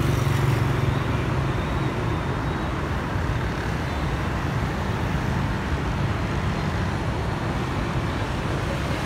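Street traffic of motor scooters and cars passing on a wide city road, a steady mix of engine hum and tyre noise. It is somewhat louder in the first second or so as a car goes by.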